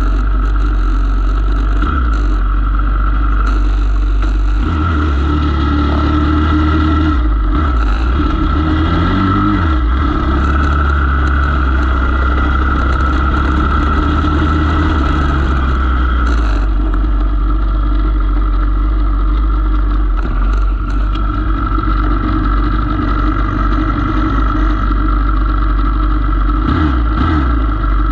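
Pit bike engines running on a track, with the revs rising and falling a few times over a heavy, steady low rumble.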